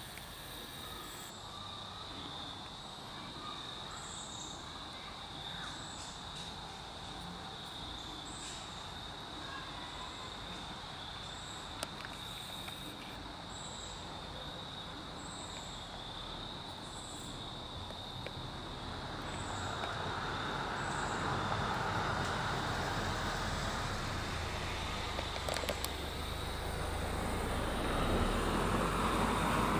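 Insects chirring steadily, with a high chirp repeating about once a second. From about two-thirds through, the rumble of an approaching vehicle builds and grows louder again near the end.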